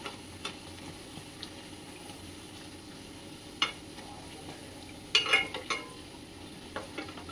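Puris deep-frying in hot oil in a kadhai: a steady faint sizzle, with a few short clicks about three and a half seconds in and a small cluster of them about five seconds in as the puri is turned.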